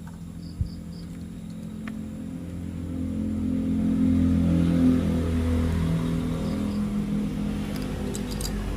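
Battery-powered toy train running, its small electric motor and gears giving a steady hum that grows louder over the first few seconds and then eases slightly. A single click comes just under a second in.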